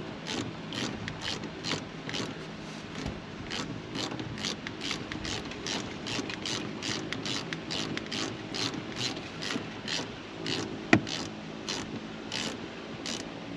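A 3/8-inch drive ratchet with an E10 E-Torx socket clicking steadily, about three clicks a second, as it backs out the shifter's mounting bolts. One sharper knock comes about eleven seconds in.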